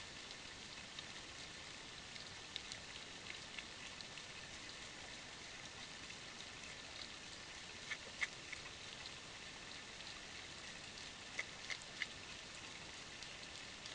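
Deer licking a mineral block: faint, scattered soft clicks and ticks over a steady hiss, with a few louder clicks about eight seconds in and again near the end.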